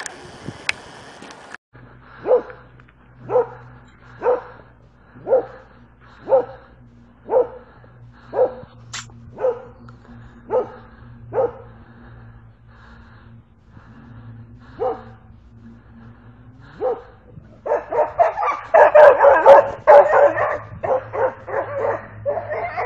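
A dog barking at a steady pace, about one bark a second, then a few scattered barks, and near the end a burst of rapid, louder barking and yelping.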